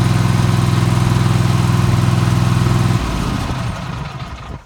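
Riding lawn mower engine running steadily, then cutting out abruptly about three seconds in and winding down to a stop. The engine dies on its own while the key is held on, the fault being shown.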